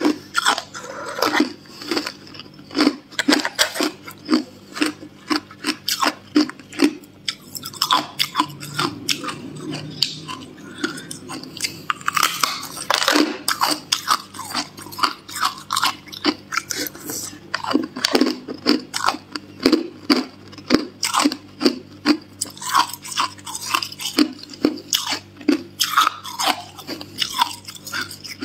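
A person biting and chewing hard clear ice: a steady run of sharp, crisp crunches, several a second.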